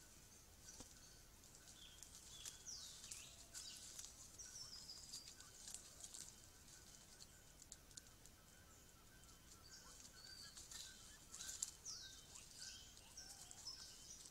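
Faint forest birdsong: high-pitched calls of small birds, including two quick downward-sweeping whistles and a short run of stepped, falling notes, with scattered faint clicks and a faint steady tone underneath.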